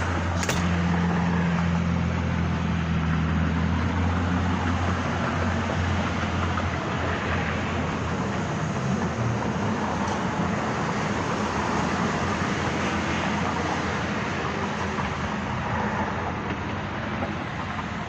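Steady vehicle noise outdoors: a low engine hum that fades out about seven seconds in, over a constant rushing noise.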